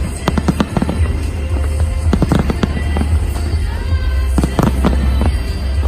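Fireworks going off in quick succession, many sharp bangs and pops one after another, with music playing underneath.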